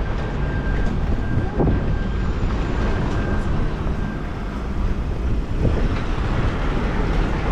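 Traffic on a busy city road: a steady rumble of passing vehicle engines and tyres, with a faint, thin, steady high tone that stops about halfway through.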